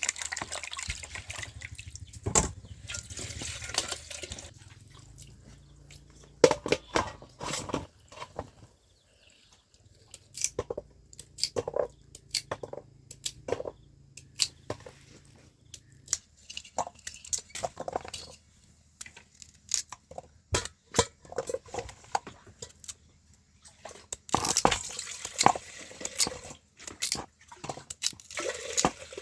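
Water splashing and dripping, with many irregular knocks and clatters scattered throughout and louder stretches of splashing near the start and again near the end.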